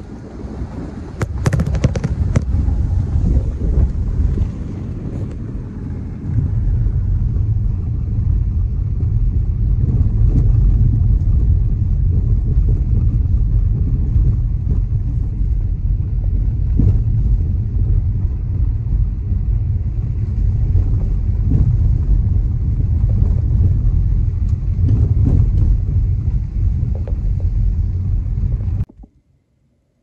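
Car driving on a dirt and gravel road: a steady low rumble of tyres and suspension on the rough surface, with a few sharp clicks about a second and a half in. The rumble stops abruptly near the end.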